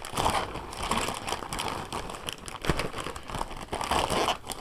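Blue plastic wrapping crinkling and crackling as fingers pull it open, in quick irregular bursts.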